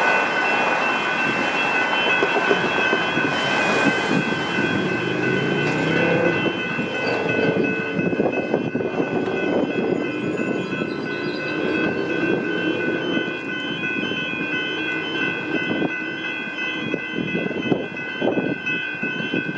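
A level crossing's electronic warning bells ring steadily, a set of high pitched tones that never stop. Under them a Melbourne suburban electric train passes through the crossing, its rumble and wheel noise loudest through the middle.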